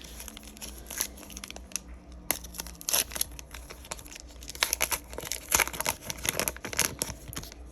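Trading-card pack wrapper crinkling and being torn open: irregular crackles and rips, the loudest and densest in the second half.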